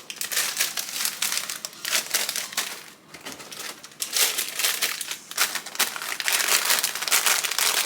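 Plastic snack bags from a variety pack crinkling and rustling as they are handled and packed into place, in irregular bursts with a brief lull about three seconds in.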